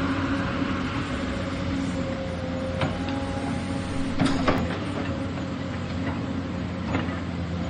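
Excavator working: its diesel engine running steadily, with a few sharp knocks from the machine, the loudest pair a little past the middle.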